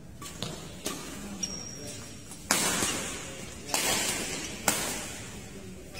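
Badminton rackets striking a shuttlecock in a fast doubles rally: a series of sharp cracks, the loudest about four and a half seconds in. A longer burst of noise follows the hit about two and a half seconds in.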